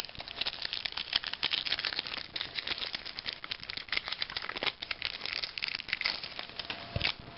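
Wrapper of a trading card pack crinkling and crackling as it is handled and torn open, with a dense patter of small crackles throughout.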